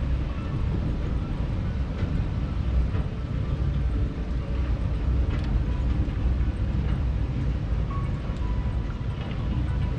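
Auto Chair ride running: a steady low mechanical rumble as the chair travels along its rail, with a few faint clicks.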